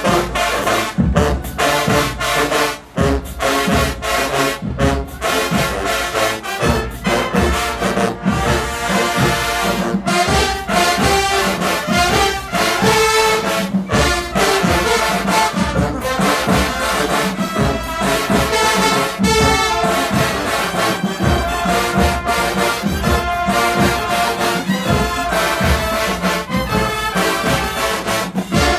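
A marching band's brass section, trombones and trumpets, playing a loud, full-band tune over a steady drum beat.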